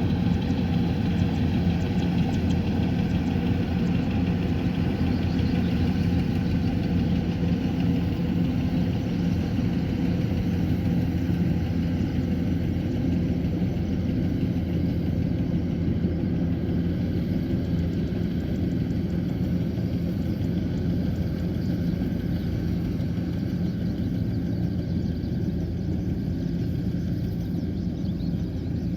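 Kubota combine harvester's diesel engine running steadily, with an even low drone that eases off slightly near the end.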